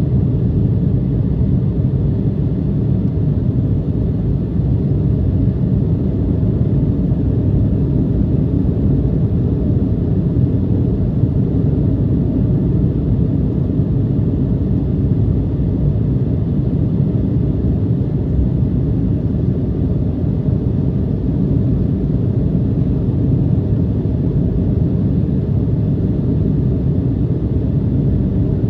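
Steady low rumble inside the cabin of an Embraer 175 in its climb after takeoff: the drone of its two GE CF34-8E turbofan engines and the rush of air, unchanging throughout.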